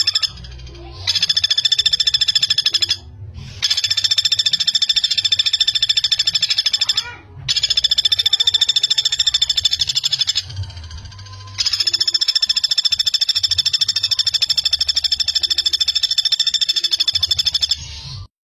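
Common flameback woodpecker (pelatuk bawang) calling in long, very fast trills of repeated notes: five runs of a few seconds each with short breaks between, the last stopping abruptly near the end.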